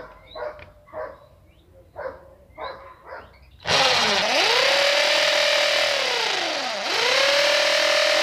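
Corded electric drill with a 3/4-inch wood bit boring into green bamboo: it spins up sharply about halfway through and runs at a steady whine, eases off briefly near the end and spins up again.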